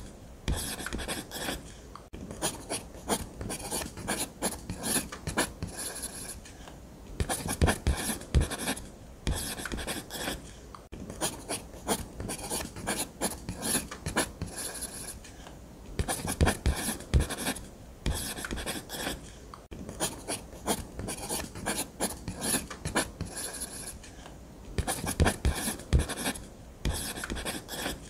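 Ballpoint pen scratching on paper in quick, repeated strokes, in runs of a few seconds with short pauses between them.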